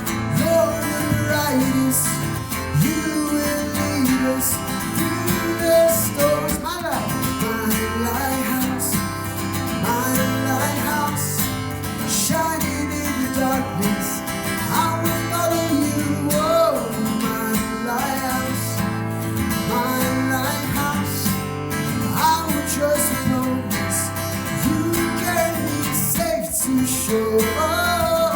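Worship band music with strummed acoustic guitar to the fore, playing on steadily without sung words.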